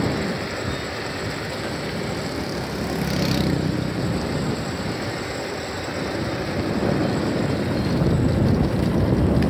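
Small motorcycles running at road speed: a steady low engine drone mixed with wind rushing over the microphone, swelling and easing slowly.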